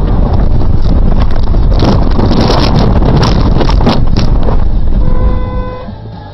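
Car cabin noise at highway speed: a steady low rumble of the engine and tyres with wind on the dashcam microphone, and a stretch of crackling in the middle. It fades out near the end.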